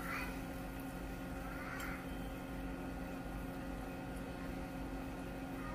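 A steady low electrical or machine hum with several unchanging tones. Two short, faint voice-like sounds come just at the start and about two seconds in.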